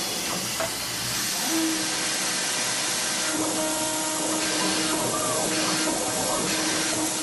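Gravograph IS900 engraving machine running its spindle over the sign material: a steady hiss, with a steady hum joining about a second and a half in and a higher hum a couple of seconds later.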